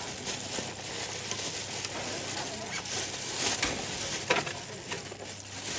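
Thin plastic carrier bag rustling and crinkling as a foam takeaway box is slid into it and the bag is lifted, with a couple of sharper crackles.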